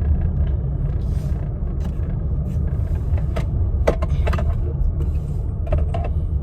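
Steady low road-and-engine rumble heard inside a moving car's cabin, with a few brief clicks about halfway through and near the end.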